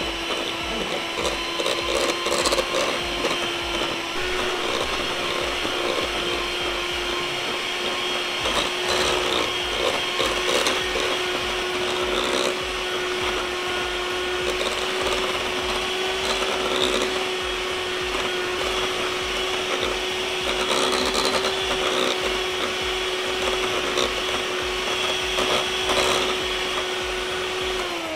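Sharp electric hand mixer running steadily on one speed, its beaters creaming butter, sugar and egg yolk in a stainless steel bowl, with occasional clicks of the beaters against the bowl. The motor's pitch steps up slightly about four seconds in and starts to wind down at the very end as it is switched off.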